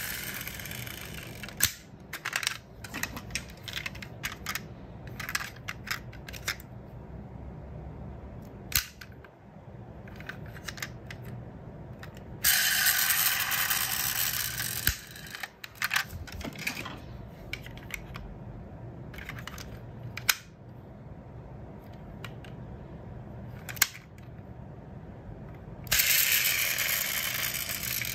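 Diecast metal toy cars being handled: small clicks and knocks as their opening doors and bodies are moved in the fingers. Two longer scraping noises, a couple of seconds each, come about halfway through and near the end, and are the loudest sounds.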